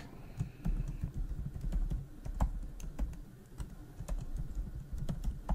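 Typing on a computer keyboard: a run of irregular key clicks, some louder than others.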